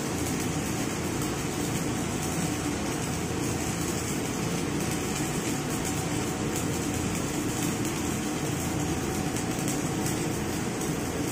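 Arc welding on a steel hydraulic pipe with stick electrodes: the welding arc gives a steady, even hiss, with a low steady hum underneath.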